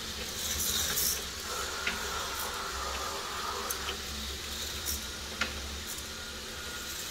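K'NEX model roller coasters running: a steady low motor hum and a whirring rattle from a coaster car on the plastic track, with scattered light clicks.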